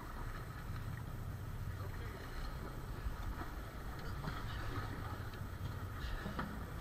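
Steady low rumble of wind and water around a fishing boat at sea, with faint indistinct voices and a few light knocks in the second half.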